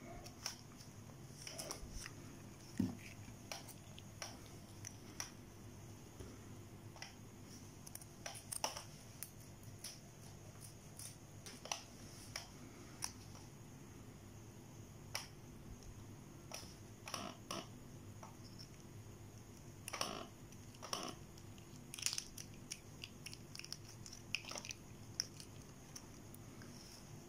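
Thin plastic being handled: scattered light clicks and crinkles as a plastic food tray is moved and a plastic sauce sachet is squeezed out, over a low steady background hum.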